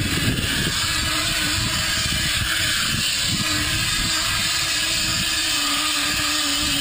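Wind buffeting the microphone outdoors: an uneven low rumble over a steady hiss, with a faint steady hum underneath.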